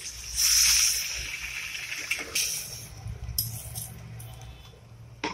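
Water poured from a plastic jug into a kadai of frying spice paste and potatoes: a splashing hiss, strongest in the first second, that dies away over the next two seconds, followed by a few light knocks.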